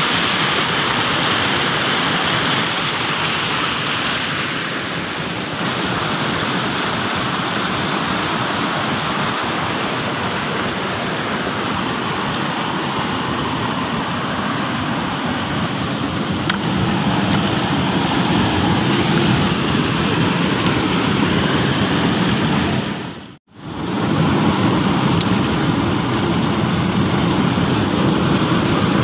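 Rushing stream water: a steady, loud rush of white water that breaks off briefly about 23 seconds in.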